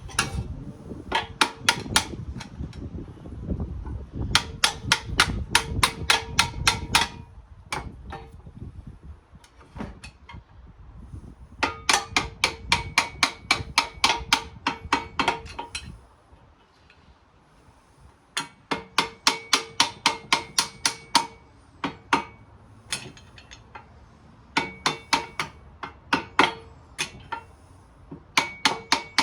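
Hammer striking a screwdriver used as a punch to drive a pin out of a radial arm saw part: runs of quick blows, about three or four a second, with short pauses between the runs, each run with a metallic ring.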